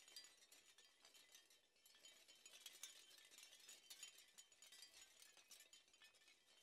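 Near silence, with faint high-pitched clinking and ticking throughout.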